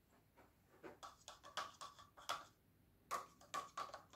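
A stirring stick ticking against the sides of small plastic cups as liquid is stirred: two quick runs of light taps, the second starting about three seconds in.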